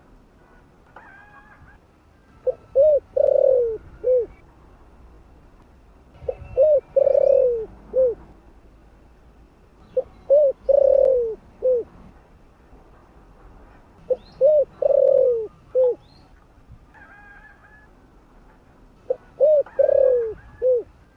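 Spotted dove cooing: five repeated phrases about four seconds apart, each a few short coos, then a longer falling coo and a short final note. Small birds chirp faintly between the phrases.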